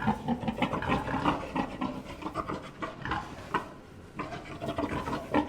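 An animal making a rapid, irregular run of short sounds, several a second.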